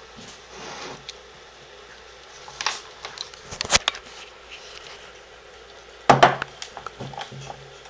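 A few sharp knocks and taps of handling, the loudest about four seconds in and again about six seconds in, followed by a few lighter ticks.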